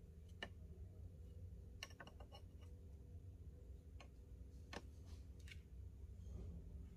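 Faint scattered clicks and ticks from hand-stitching with a brass paracord needle and micro cord through a paracord bracelet, over a low steady hum. A quick cluster of ticks comes about two seconds in; the rest are single clicks a second or so apart.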